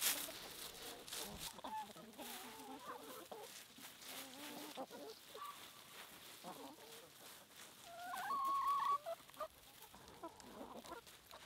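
A flock of chickens clucking, with many short overlapping calls and scattered light taps. One chicken gives a louder, drawn-out call about eight seconds in.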